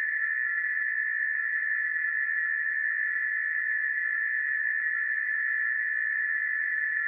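Emergency alert alarm tone: one steady high-pitched tone held without a break or change in pitch.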